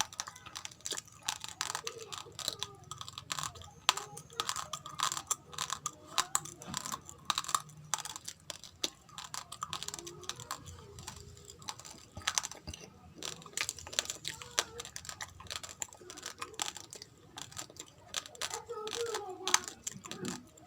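Raw rice grains being chewed: a dense, irregular run of small, crisp cracks and crunches as the hard grains break between the teeth.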